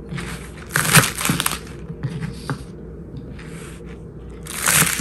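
Kitchen knife cutting through scallion stalks onto a plastic cutting board: several separate cuts, the loudest about a second in and near the end.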